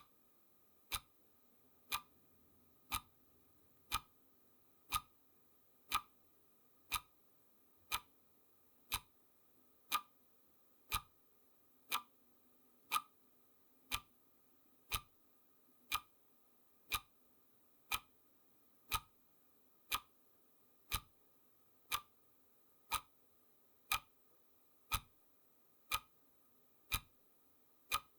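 Clock ticking sound effect marking a countdown: single sharp ticks, one every second, evenly spaced, over a faint steady hum.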